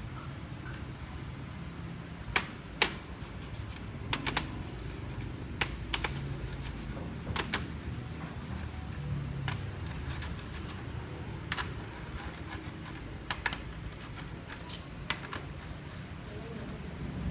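Scattered sharp clicks and taps of small plastic and metal laptop parts and tools being handled, irregular and about a dozen in all, over a low steady hum.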